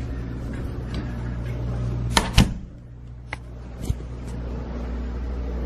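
A door being closed: two sharp knocks of door and latch in quick succession about two seconds in, followed by a few lighter clicks, against a steady low hum.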